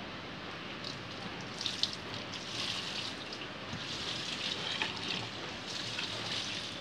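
Liquid poured from a metal mug into an open metal drum of copal varnish, splashing and trickling in several spells.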